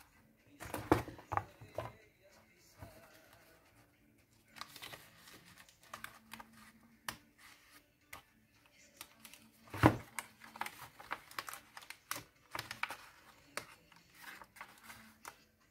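Paper rustling, crinkling and light tapping as die-cut paper pieces are peeled from a sheet and handled on a table. The sounds come irregularly, loudest about a second in and again near the ten-second mark.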